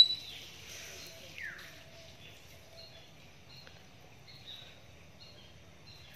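Outdoor ambience with small birds chirping, short high chirps repeating every half second or so. A loud, sharp, high-pitched call sounds right at the start, and a falling call comes about a second and a half in.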